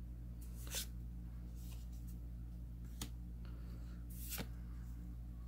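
Trading cards handled and slid one off another: a few brief soft swishes about a second apart and one sharp click about three seconds in, over a steady low hum.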